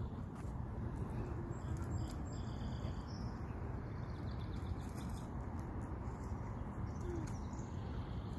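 Steady outdoor background noise, strongest in the low range, with a few faint bird calls.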